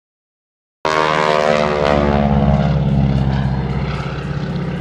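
Aerobatic biplane's propeller engine, loud from a sudden start about a second in, dropping in pitch as it passes low and then holding steadier and slowly fading as it climbs away.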